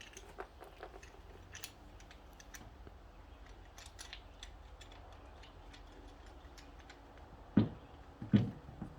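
Dent-pulling tools working on a car body panel during a glue-pull dent repair: scattered light clicks and ticks, then two sharp knocks under a second apart near the end.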